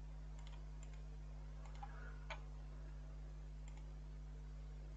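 Several faint computer mouse clicks spread over a few seconds, over a steady low electrical hum.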